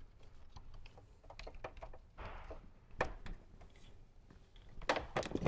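Light handling noises of wiring being routed and tucked under a vehicle's carpet and plastic trim: scattered sharp clicks, a short rustle about two seconds in, and a few louder clicks near three seconds and near the end.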